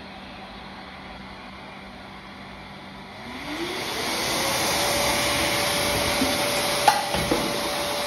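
Brushless-motor pet blower running at low speed, then about three seconds in spinning up with a rising whine to a steady, much louder high-speed whir and rush of air. A short click near the end.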